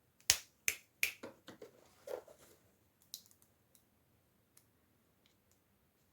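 Sharp clicks and snaps from hands handling small plastic toy packaging: three loud clicks in the first second, then lighter clicking over the next second and a half, and a few faint ticks after.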